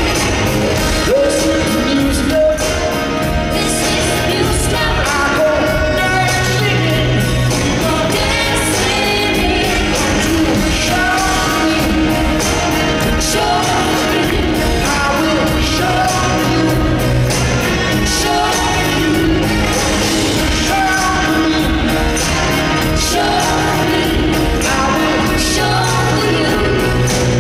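Live rock band playing with vocals over a steady beat, amplified through an arena sound system.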